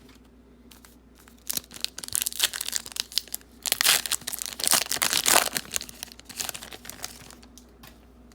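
A pack of 2019 Panini Prestige football trading cards being torn open, its plastic wrapper crinkling and tearing for several seconds, loudest in the middle, after a brief quiet start.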